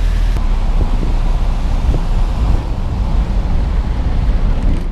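Wind buffeting the camera microphone while riding in a moving vehicle, a loud steady low rumble with road and engine noise beneath it.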